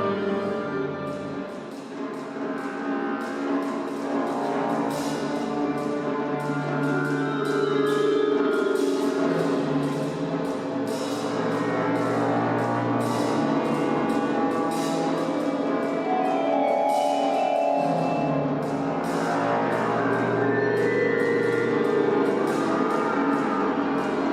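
A chamber orchestra playing a contemporary piece: sustained string and wind chords over held low notes, with rapid repeated percussion strikes running through it.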